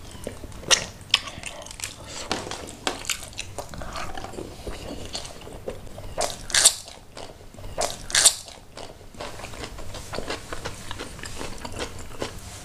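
Close-miked mouth sounds of a man eating curried fish head and rice with his fingers: wet chewing, lip smacks and short clicks throughout, with a couple of louder crunching bites into a raw chili pepper around six and eight seconds in.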